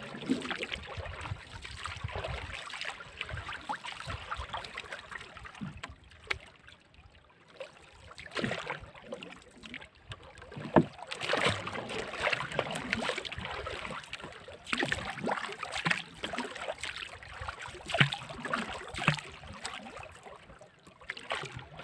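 Wooden paddle dipping and pulling through the water of a small boat, in irregular splashing, swishing strokes, with a few sharp knocks.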